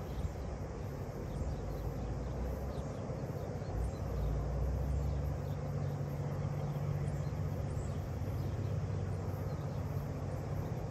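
A steady low engine hum that grows a little stronger about four seconds in, with wind on the microphone and faint bird chirps.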